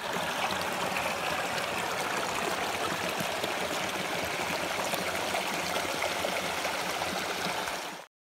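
A small stream running over rocks, with water trickling down a mossy rock into a shallow pool: a steady rush of water that cuts off abruptly near the end.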